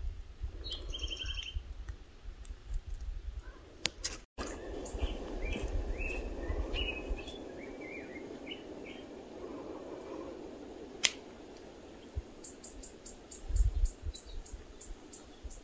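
Small birds chirping in short, high calls, with a quick run of repeated chirps near the end, over a steady low rush of outdoor background noise.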